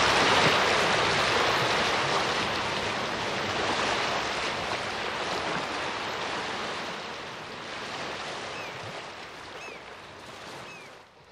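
Steady rush of sea surf washing on a rocky shore, slowly fading out and then cutting off. A few faint short chirps come near the end.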